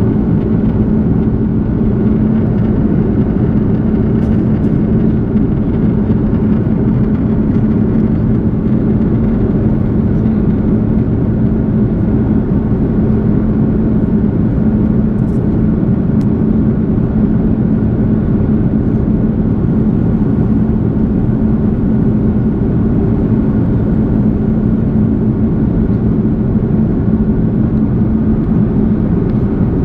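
Steady engine and air noise inside the cabin of an Airbus A330 airliner, with a constant low hum and no change in level.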